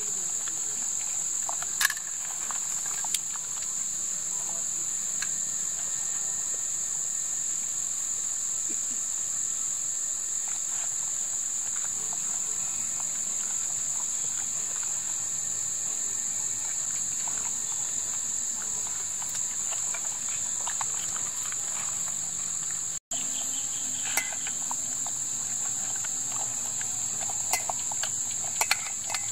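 Steady, high-pitched insect chorus, with a few light clicks and knocks, the loudest about two seconds in.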